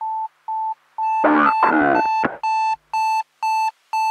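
Electronic alarm beeping about twice a second, a single mid-pitched tone that turns harsher and buzzier from about two and a half seconds in. A voice speaks briefly over the beeps about a second in.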